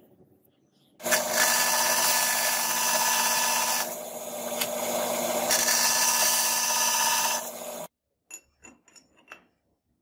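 Bench-mounted power saw with a vertical blade cutting through a brass knife-handle scale: a loud, steady machine whine with cutting noise. The cutting noise eases for a second or so in the middle, then the sound stops abruptly. A few light clicks and taps follow near the end.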